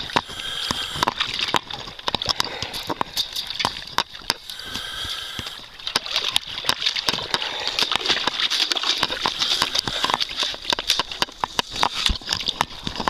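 Water sloshing in a swimming pool topped with thin skim ice, with many sharp crackles and clicks as the ice breaks up on the disturbed surface.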